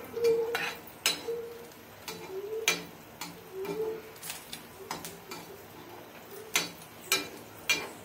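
Raw prawns handled in a steel bowl of water and ice: irregular sharp clinks and taps against the bowl. A low cooing call repeats softly behind them over the first four seconds.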